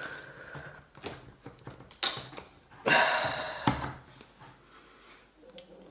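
A few light knocks, then a louder, brief rustling scrape about three seconds in: handling and movement noise close to the microphone.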